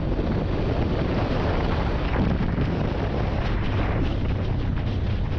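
Motorcycle engine running at road speed, heard from on board, with wind buffeting the microphone.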